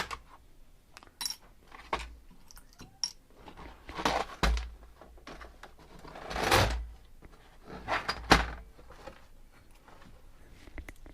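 Metal parts and hand tools being handled during disassembly of an electronics docking station. Scattered clicks and clatters, a few louder knocks, and a longer scraping rustle about six and a half seconds in.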